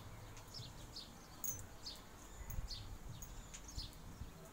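Small birds chirping over and over: short, high, falling chirps, several a second.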